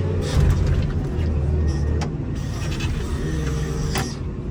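Komatsu WA270 wheel loader's diesel engine running steadily, heard from inside the cab. A few sharp knocks and clatters come near the start, about two seconds in, and near the end.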